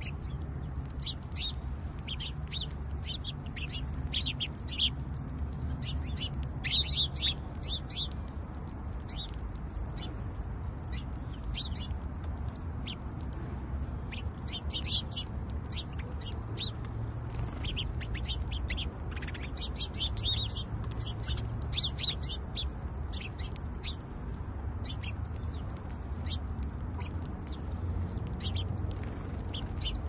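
A flock of house sparrows chirping: many short, sharp chips at an irregular pace, bunched into busier spells a few times.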